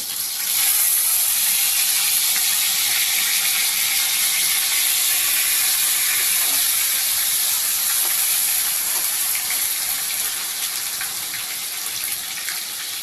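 Chicken mince and ginger-garlic-onion-chilli paste sizzling in hot oil in the pan, a loud steady hiss that starts about half a second in and eases slightly near the end.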